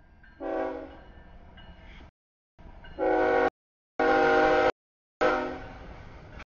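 Horn of an approaching CSX freight locomotive sounding a series of blasts for a grade crossing: a short blast about half a second in, another short one at about three seconds, a longer one right after, and a final one that fades out. The sound cuts out to complete silence in the gaps between the later blasts.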